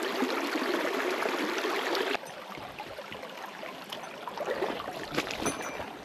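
Mountain stream water rushing over rocks as a steady hiss. About two seconds in it drops suddenly to a softer, quieter flow, and a few faint clicks come near the end.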